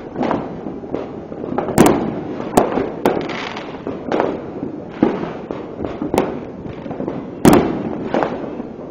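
New Year fireworks going off in an irregular series of sharp bangs, each with an echoing tail, over a constant rumble and crackle of more distant fireworks. The loudest bangs come about two seconds in and again near the end.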